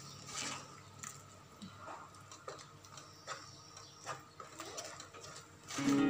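Spatula scraping and knocking against a non-stick wok as minced pork and prahok are stir-fried, an irregular clatter of a scrape or two a second. Loud music comes in near the end.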